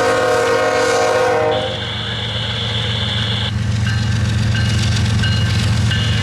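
CSX diesel locomotive horn sounding a chord that cuts off about a second and a half in, over the steady low rumble of the locomotives' diesel engines. A high-pitched squeal follows for about two seconds, then short high tones.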